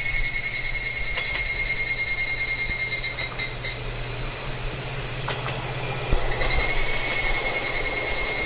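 Crickets trilling steadily at several pitches, with another higher trill joining for a few seconds midway, over a low steady rumble of a passing train.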